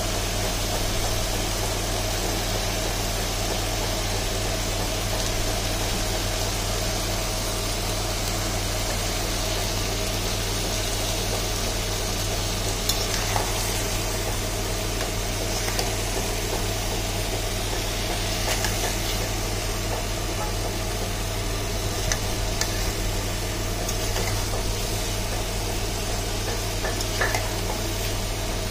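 Chicken pieces and chopped tomato in spiced masala sizzling in a pan while being stirred with a metal spoon, which gives a few light clicks against the pan. All of this sits over a steady low hum.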